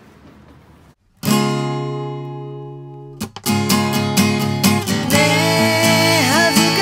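Acoustic guitar: a single strummed chord about a second in that rings and fades, then steady rhythmic strumming. A woman's singing voice comes in over the guitar near the end.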